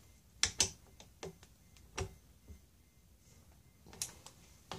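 Scattered light clicks and knocks from a torque wrench and hand tools while the throttle body's bolts are tightened lightly into the aluminium intake manifold. There are about seven separate clicks at uneven spacing, not a steady ratchet run.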